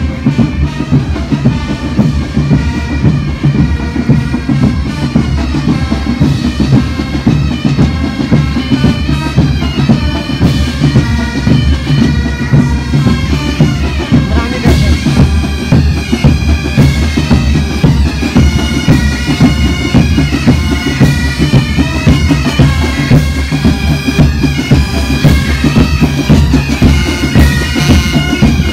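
Pipe band playing a march: bagpipe melody over steady droning notes, with drums keeping the beat.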